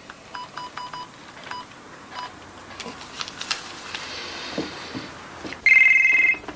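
Push-button telephone keypad beeps as a number is dialled, about seven short beeps in the first two seconds, then a few clicks. Near the end comes a short, loud burst of warbling electronic telephone ringing.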